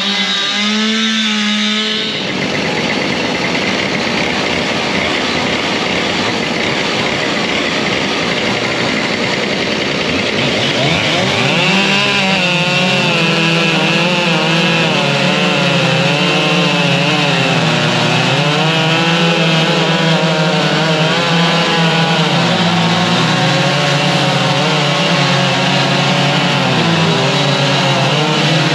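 Two-stroke chainsaw cutting into a standing log during chainsaw carving. The engine's pitch wavers up and down continually as the saw is worked into the wood. There is a sudden change in the sound about two seconds in.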